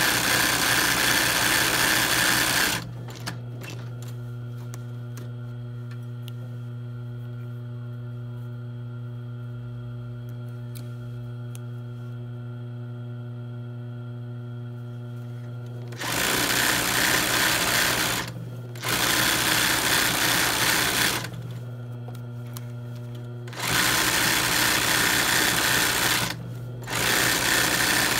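Industrial sewing machine doing free-motion embroidery, stitching fast in runs of a few seconds. After the first run it stops for about thirteen seconds, leaving only a steady low hum, then starts again for three more short runs with brief pauses between.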